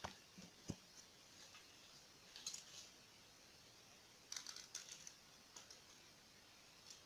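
Near silence with a few faint, light taps and clicks as a hand picks up and handles a cucumber on a cutting board.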